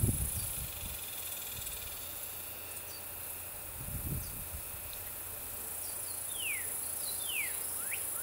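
Creekside outdoor sound: insects buzzing steadily at a high pitch, with a bird calling in quick sliding notes, falling ones late on and rising ones at the very end. Two low soft bumps, at the start and about four seconds in, come from the rope and mesh trap being handled.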